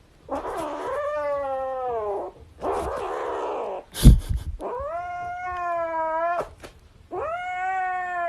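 A cat yowling in three long, drawn-out calls, with a sharp knock about four seconds in.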